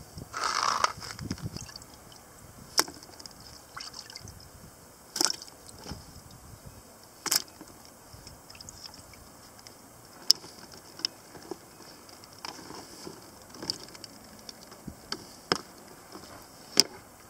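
Seawater splashing and sloshing in a bucket holding freshly caught horse mackerel, with a short splash about half a second in. This is followed by a handful of sharp clicks and knocks spread through the rest.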